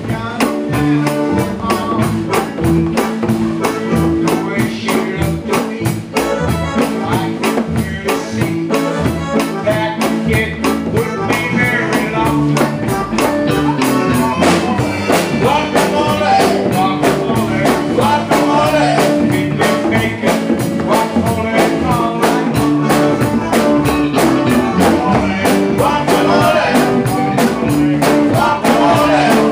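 Live band music: a drum kit played with cymbals keeping a steady beat, with electric bass and a wavering lead melody on top.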